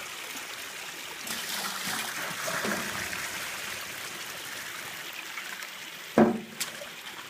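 Water running and splashing through a metal sluice box fed by a pump hose. About six seconds in comes a sharp knock, then a smaller one.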